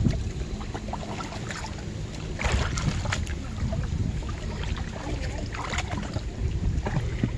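Wind rumbling on the microphone, with muddy river water sloshing and roots rustling as a man gropes by hand inside a hole in the bank; short louder scuffles about two and a half and five and a half seconds in.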